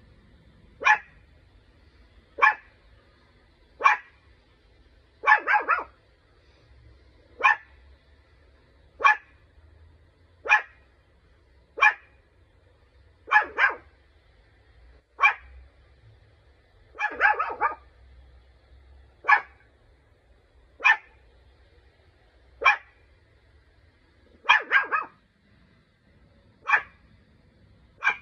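Small fluffy puppy barking: short sharp barks about one every second and a half, some coming as quick doubles or triples.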